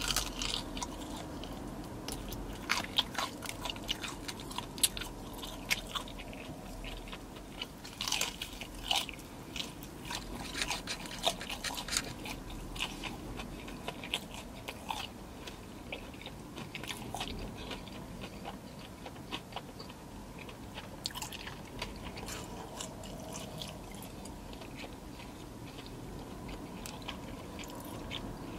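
Close-up chewing and biting of crispy breaded vegan fried chicken, with many sharp crunches that come thickest and loudest in the first half and thin out later.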